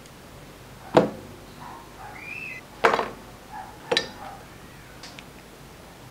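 Three sharp clicks of small hard objects knocked or set down, spaced about a second or two apart, the first the loudest: parts of a GoPro Hero 4 action camera and its plastic frame mount being handled on a desk.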